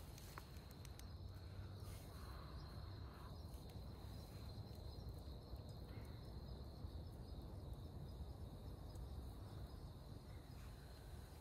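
Crickets singing faintly: one continuous high trill held steady over a low background rumble.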